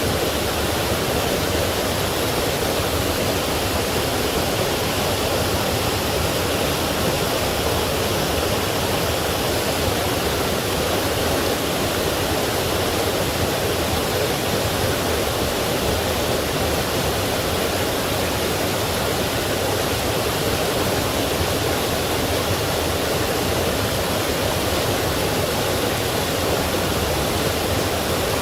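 Forest stream flowing over rocks and small falls, a steady, unbroken rush of water.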